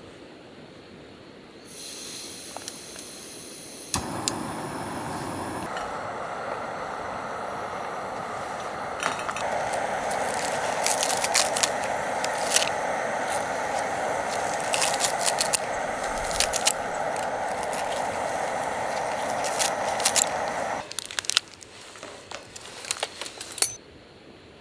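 Remote-canister camping gas stove: gas hisses as the canister valve opens, the igniter clicks, and the burner runs steadily under the pot, getting louder as it is turned up, until it is shut off suddenly near the end. Over the burner come quick sharp snips of scissors cutting green onions into the stew, and a few light clicks and knocks follow after the burner stops.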